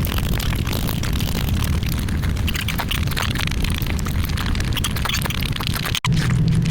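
Close-miked eating: fast chewing and crunching with many crackly clicks over a heavy low rumble. The sound cuts out for an instant about six seconds in and picks up again with a steadier low hum.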